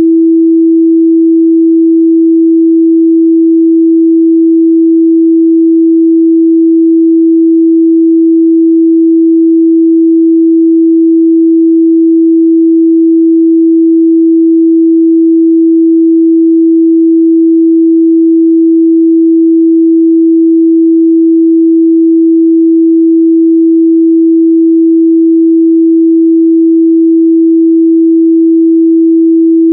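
A steady, unbroken 328 Hz pure sine test tone, one continuous loud hum at a single pitch.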